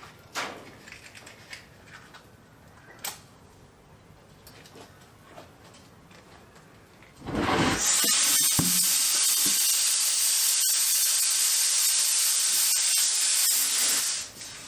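A few faint clicks, then about seven seconds in a low thump followed by a loud, steady gas hiss lasting about six seconds that cuts off sharply. It comes from a large tractor tyre being bead-seated with starter fluid (ether) and inflated.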